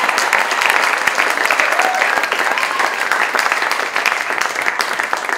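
Theatre audience applauding, a dense, steady clapping that thins slightly near the end.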